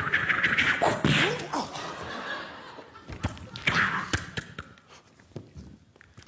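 Vocal sound effects made with the mouth: a run of hisses, clicks and short knocks, with a few brief sliding tones.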